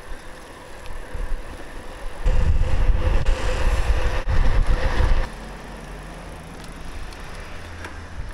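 Wind rushing over the microphone of a moving bicycle, with road and tyre noise underneath; the rumble grows much louder from about two seconds in and drops back just after five seconds.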